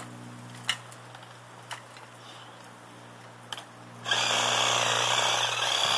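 Cordless Ryobi reciprocating saw starts up about four seconds in and runs steadily, cutting through a small tree's trunk. A few faint clicks come before it.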